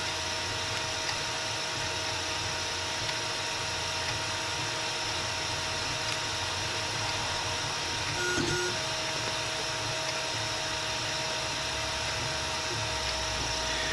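Steady low hum with a faint constant high-pitched whine from background equipment, and one brief faint click about eight seconds in.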